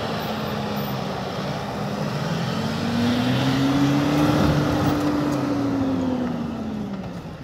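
Mitsubishi L200 pickup's engine pulling under load as it climbs a snowy slope, its pitch rising to a peak about halfway through and falling away near the end, over the noise of the tyres churning through snow.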